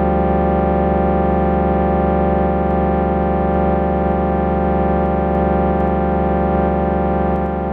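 Dexed FM synthesizer, a Yamaha DX7 emulation, holding one sustained note or chord as a steady, dense drone. It drops slightly in level near the end.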